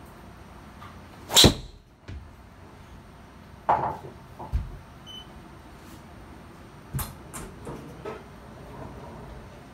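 A driver striking a golf ball in a small indoor simulator bay: one loud, sharp crack about a second and a half in, with a brief ringing tail. Several quieter knocks and thuds follow.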